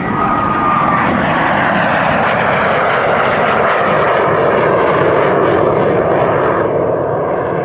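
BAC Strikemaster's single Rolls-Royce Viper turbojet, loud as the jet makes a display pass. A whine in the jet noise slides down in pitch as the aircraft flies away, and the sound turns duller about seven seconds in.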